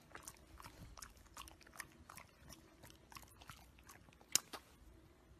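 Faint chewing and crunching: irregular soft clicks several times a second, with one sharper click about four and a half seconds in.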